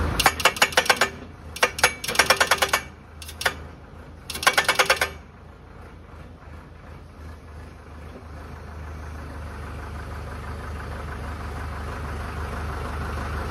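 Tractor-mounted hydraulic breaker hammer pounding a steel crash-barrier post into the ground in four short bursts of rapid strikes, about eight a second, during the first five seconds. After that only the tractor's engine is heard, running steadily.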